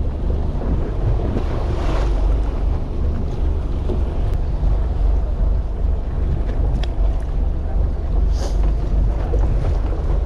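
Steady wind buffeting the microphone over the low, even rumble of a fishing boat at sea, with sea water washing about; a few brief light knocks come in the second half.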